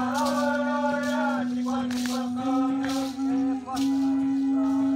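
Group ritual chanting: a low note held almost throughout by the voices, breaking briefly about two and a half to three and a half seconds in, with other voices sliding above it, over a regular percussive beat roughly every two-thirds of a second.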